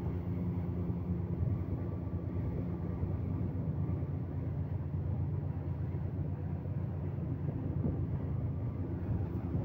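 Speedboat engine running steadily, a low even hum with no change in pitch.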